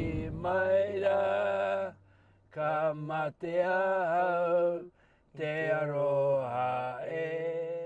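A man's voice chanting in long held phrases, breaking off briefly about two and five seconds in.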